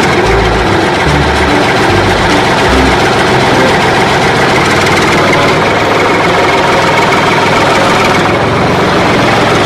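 Tractor engine idling steadily, a loud and even rumble. It is a recorded sound effect, since the plastic toy tractor on screen has no motor.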